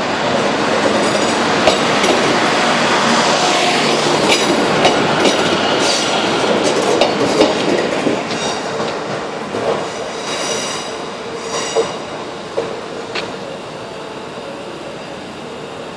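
Yellow Network Rail diesel multiple unit passing close along a station platform, its wheels clicking over rail joints, with short squeals from the wheels about ten to twelve seconds in. The sound is loudest as it passes and then fades as the train draws away.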